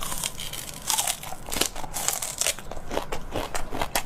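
Eating sounds: crisp crunches and crackles in quick, irregular succession.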